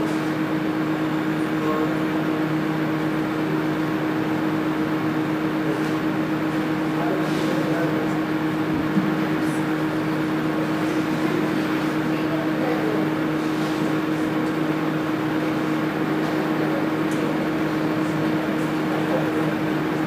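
A steady low hum with a constant hiss of background noise, unchanging throughout.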